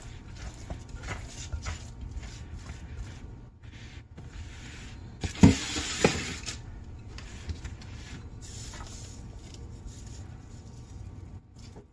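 Hands working soft, sticky bread dough in a glass bowl, pinching off pieces and rolling them into balls, with soft squelching and rubbing. About five and a half seconds in comes a louder rustle with two knocks, about half a second apart.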